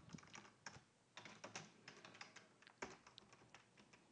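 Faint, irregular keystrokes on a computer keyboard, typing a short command, with one louder key click near three seconds in.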